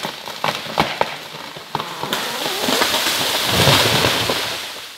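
A rain tree (trembesi) coming down after being cut: wood cracking and snapping for about two seconds, then the crown crashing through branches and leaves in a swelling rush, with a heavy low thump about three and a half seconds in, dying away near the end.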